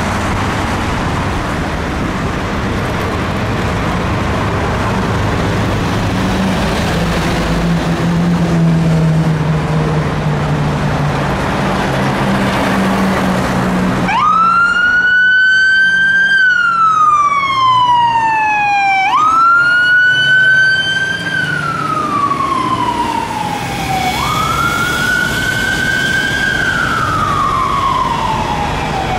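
Scania fire engine's heavy diesel engine running and revving, then about halfway in its siren starts on a slow wail: each sweep climbs sharply and falls away over about five seconds, repeating.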